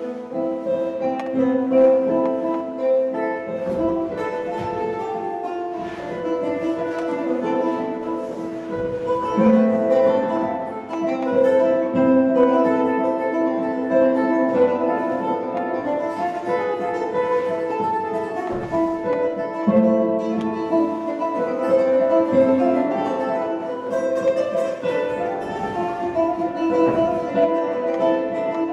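Instrumental music of slow, long-held notes over plucked strings.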